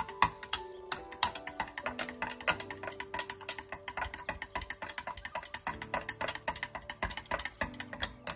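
A stirrer clicking rapidly and unevenly against the sides of a glass Pyrex measuring cup as coloured plastisol gel is mixed, over background music with steady held notes.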